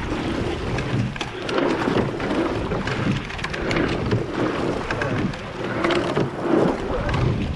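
Water rushing and splashing past a racing rowing eight, with wind buffeting the microphone and short knocks from the oars working in their gates, rising and falling with the strokes.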